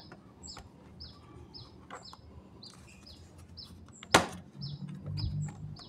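A small bird chirping in the background: short, high, falling chirps about twice a second. About four seconds in comes one sharp click, the plastic casing of a laptop being pried open.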